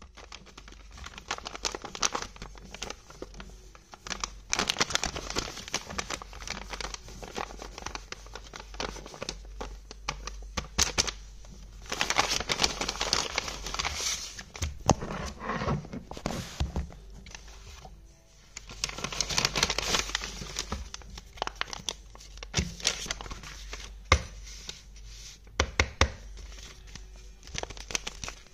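Sheets of printer paper being folded, pressed flat and handled, rustling and crinkling in bursts, with a few louder stretches of dense crinkling or tearing and many small taps of fingers on paper.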